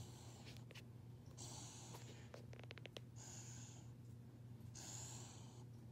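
A 15-week-old Rottweiler puppy snoring softly in deep sleep. Three faint, hissy breaths come about a second and a half apart, with a quick run of faint clicks between the first two.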